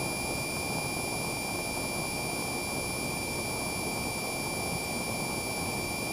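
Cessna 172's piston engine and propeller droning steadily in level flight at reduced pattern-cruise power, heard inside the cabin. A thin, steady high-pitched whine sits above the drone.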